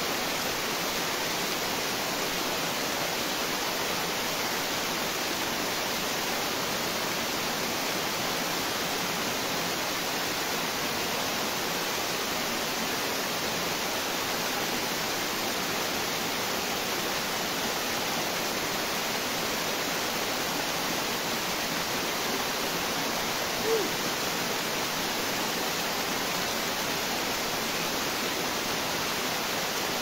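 Waterfall pouring over rock ledges into a pool: a steady, even rush of falling water. About three-quarters of the way through there is one brief short pitched sound.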